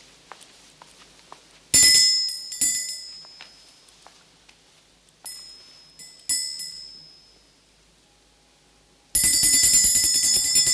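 A small handbell rung in two pairs of short shakes, each ring sounding clear high notes and fading away; near the end it rings on continuously and loudly. It is rung to summon birds.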